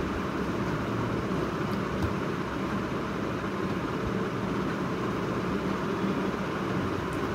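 Steady room noise: a continuous low hum with an even hiss over it, unbroken throughout.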